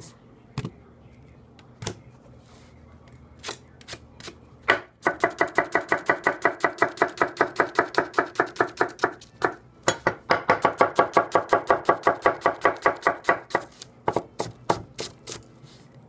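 A 210 mm gyuto chef's knife dicing an onion on a wooden cutting board. A few separate cuts are followed by two long runs of fast, even chopping, about seven strokes a second, with a short pause between them. A few more single cuts come near the end.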